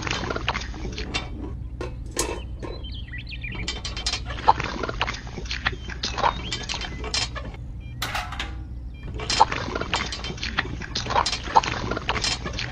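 Wet concrete poured from a small tin bucket into little moulds, with irregular clicks, knocks and wet sloshing from the handling.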